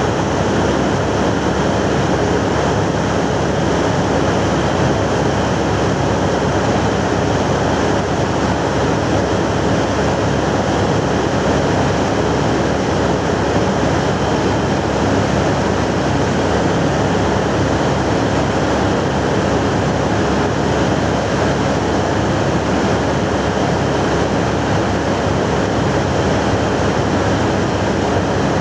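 Mining drill rig running steadily: a loud, continuous mechanical noise with no breaks.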